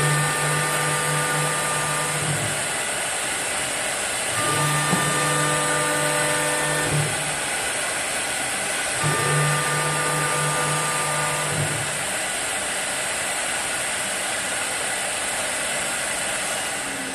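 Wood lathe machine running with a steady hiss. Three times, about four and a half seconds apart, a motor whine rises and holds for two or three seconds.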